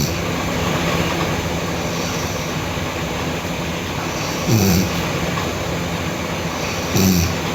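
A sleeping girl snoring: two short, loud snores, each falling in pitch, about four and a half seconds in and again near the end, over a steady rushing background noise.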